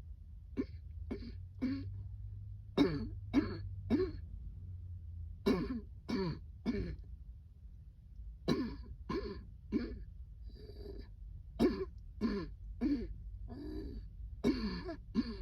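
A person in a coughing fit, coughing over and over in bouts of about three hard coughs each, brought on by breathing cold air.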